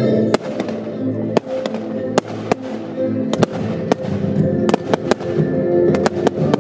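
Fireworks going off in a pyromusical display: a dozen or more sharp bangs and cracks at irregular intervals over continuous music.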